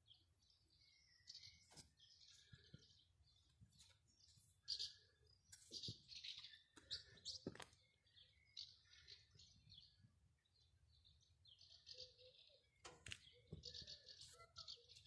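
Faint chirping of small birds: quick high chirps scattered throughout, with a few soft clicks among them.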